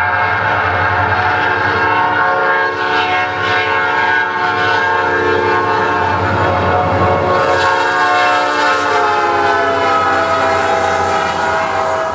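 Diesel locomotive horn sounding one long continuous chord over the rumble of the engine. Its pitch slides down about two-thirds of the way through.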